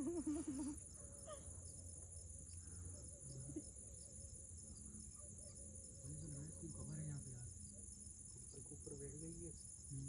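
Steady high-pitched chirring of crickets, unbroken throughout. A faint wavering voice is heard at the start and again about six and nine seconds in.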